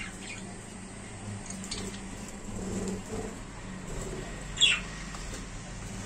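Budgerigars chirping softly, with one loud, sharp call falling in pitch about four and a half seconds in, over a low steady hum.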